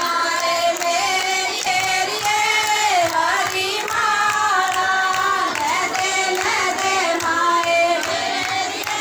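A group of women singing a devotional song together, amplified through handheld microphones, with steady hand clapping in time.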